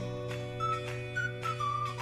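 Background music: a high, whistle-like melody over held chords and a steady beat.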